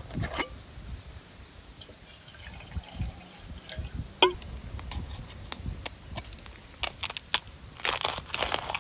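Liquid dripping and pouring among scattered light clicks of tableware, with one sharper clink about four seconds in and a quick run of clicks near the end.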